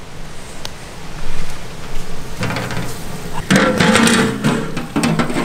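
Beef cooking in a large pot over a wood fire sizzles and steams loudly as the lid comes off, the hiss rising suddenly about three and a half seconds in. Background music with held notes comes in at the same time.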